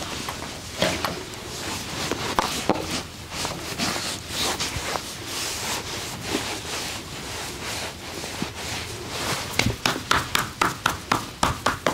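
Hands rubbing and kneading over skin during a massage, with scattered light knocks, then near the end a fast, even series of slaps, about five a second: percussive tapping massage strokes.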